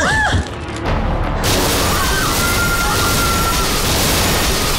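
A gift box blowing up, a dramatized explosion: a short cry at the start, then about one and a half seconds in a loud blast whose noise carries on for several seconds, with a thin steady high tone over it.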